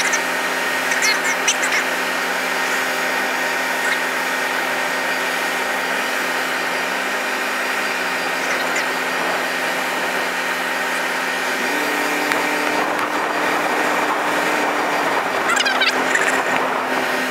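Truck engine running steadily with a droning hum while the truck's crane boom is worked, its note stepping up slightly in pitch about twelve seconds in.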